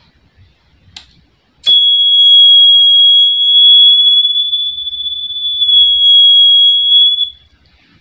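Two clicks of a lighter being struck, the second lighting the flame, and at once the buzzer of a homemade flame-sensor circuit sounds one loud, steady high tone for about five and a half seconds: the flame sensor has detected the flame. The tone cuts off near the end as the flame is taken away.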